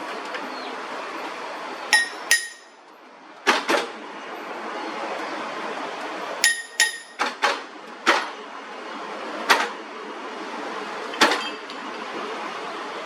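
Hammer striking metal, about eleven sharp blows at irregular intervals, some leaving a short metallic ring, over a steady background noise.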